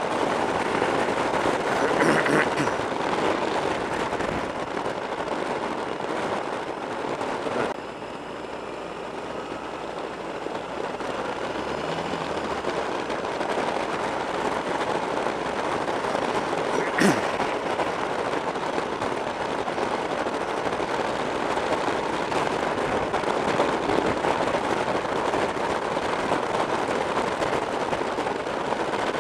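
Wind noise and buffeting on a motorcycle-mounted camera's microphone while riding at road speed, with the bike running underneath. It drops suddenly about eight seconds in and builds back up, and there is one sharp click past the middle.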